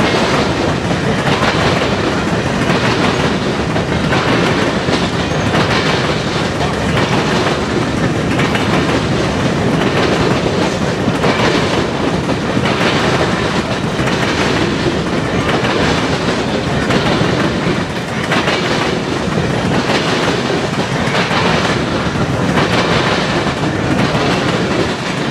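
Long freight train of open-top cars rolling past at steady speed: the steady rumble of the cars with a rhythmic clickety-clack of wheels passing over rail joints.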